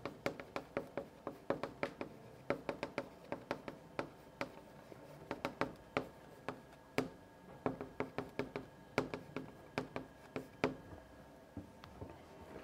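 Chalk tapping on a blackboard as lines are written: a quick, irregular run of sharp taps, a few a second, thinning out near the end.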